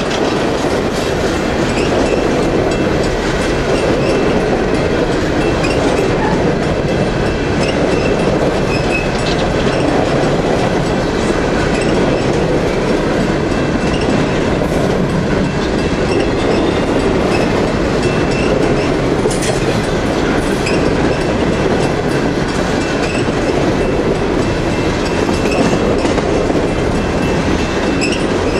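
Empty coal hopper cars rolling past at close range: a steady rumble and clatter of steel wheels on the rails, with a faint high squeal from the wheels now and then.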